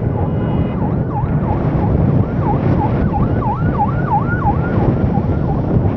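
Steady wind and road rumble from riding a motorbike at speed. Over it, a quieter siren-like tone warbles down and up about three times a second, plainest in the middle.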